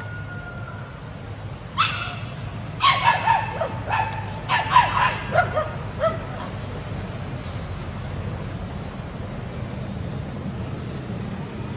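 Small dogs barking and yelping in a quick, agitated flurry of short calls, starting about two seconds in and dying out after about six seconds, over a steady low background rumble.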